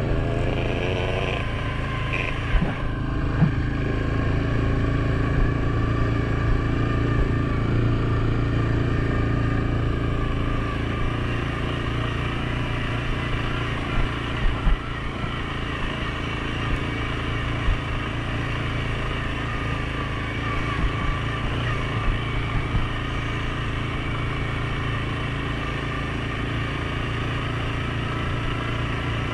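Suzuki King Quad 750 ATV's single-cylinder four-stroke engine running steadily while riding, its pitch drifting gently up and down, with a few short knocks scattered through.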